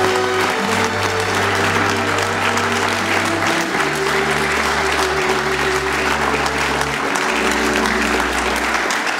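Audience applauding steadily, with music playing underneath on held low notes that change twice.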